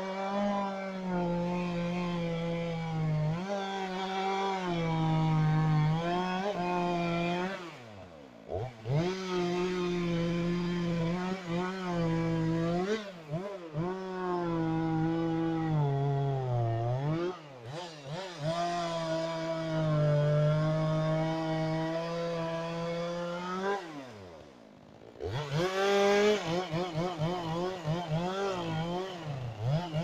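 Chainsaw at full throttle cutting through a large log, held in long steady passes under load that drop briefly toward idle a few times. Near the end the engine is revved up and down in quick blips.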